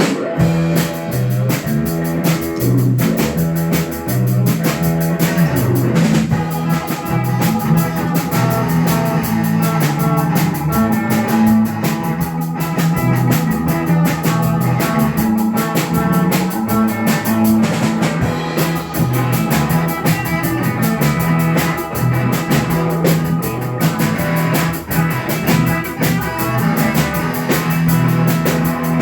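Rock band playing an instrumental passage: drum kit keeping a steady beat under an electric guitar riff and a bass line that repeats, with no singing.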